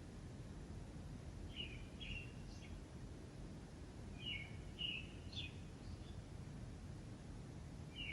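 A small bird chirping in short phrases of two or three quick notes, repeated every two to three seconds, over a steady low background rumble.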